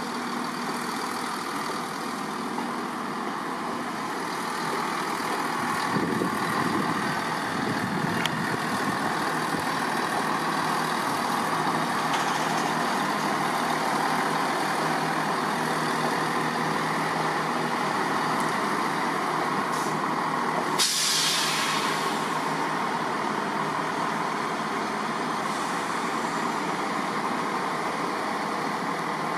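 ScotRail Class 170 Turbostar diesel multiple unit moving slowly past, its underfloor diesel engines running steadily and growing a little louder about five seconds in. Past the two-thirds mark comes a short hiss of compressed air lasting about a second.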